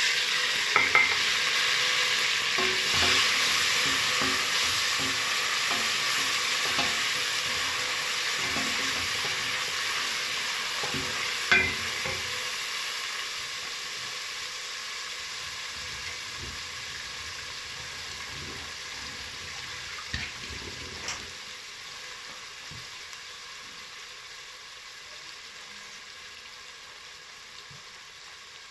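Chopped tomatoes frying in hot oil in a pan, a loud sizzle that fades steadily as they cook down, with a few knocks of a stirring utensil against the pan.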